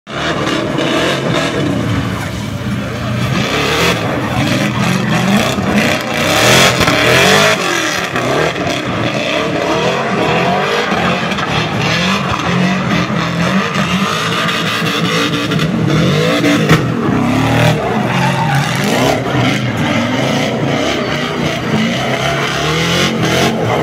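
BMW E36 Compact drift car's engine revving hard, its pitch rising and falling over and over as it drifts, with tyre and spray noise from the wet tarmac. Sharp exhaust backfire pops break through, the loudest a single crack about two-thirds of the way through.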